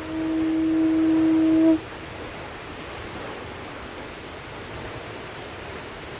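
A long, held low note, horn-like with a few overtones, swells and then cuts off suddenly about two seconds in, leaving the steady rush of a waterfall.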